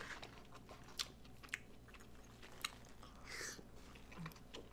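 Close-up chewing of a forkful of loco moco: hamburger patty with egg, gravy and rice. The chewing is faint and wet, with a few sharp mouth clicks about a second, a second and a half and two and a half seconds in.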